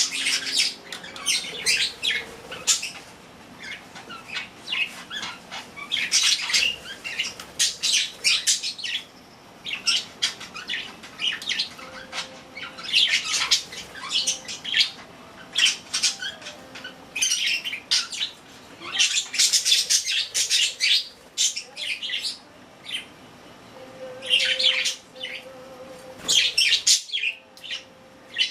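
Pet budgerigars chirping and chattering in quick, high bursts that come and go every second or two.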